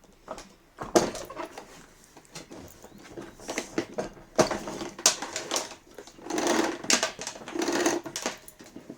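Handling noises on a plastic vacuum cleaner: irregular clicks and knocks with a few short scraping rustles, no motor running.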